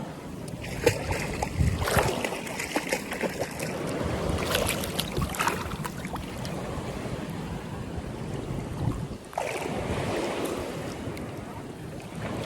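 Seawater splashing and waves washing around swimmers, rising in several louder surges, with wind buffeting the microphone.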